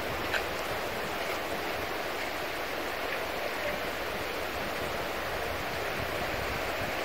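Steady swish and slosh of water as a gold pan is swirled and dipped in shallow river water, washing gravel down toward the concentrate near the end of panning.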